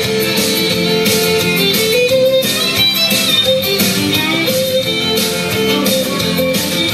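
Instrumental break of a country song, with guitar to the fore over a steady beat.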